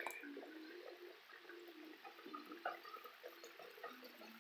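Breaded crappie deep-frying in a pot of hot peanut oil, the oil bubbling faintly with scattered small crackles and pops.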